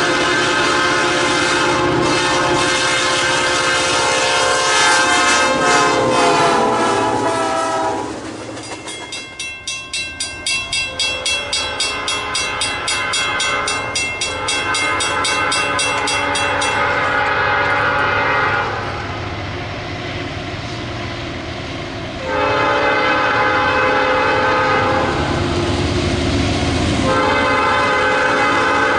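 Nathan Airchime P5 five-chime train horn sounding a long blast whose chord drops in pitch about six seconds in as the locomotive passes. A regular ticking about twice a second follows while the train rolls by, and the horn sounds again about 22 seconds in, in two more blasts.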